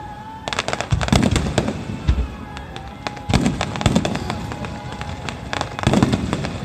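Fireworks finale: volleys of aerial shells bursting in three waves a couple of seconds apart, each a deep boom followed by dense rapid crackling.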